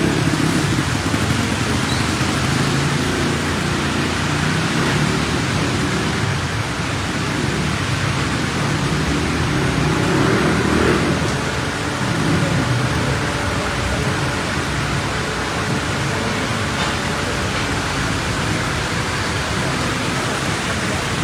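Heavy rain falling steadily, with cars pushing through knee-deep floodwater and a low rumble of engines and water beneath; the rumble swells about ten seconds in.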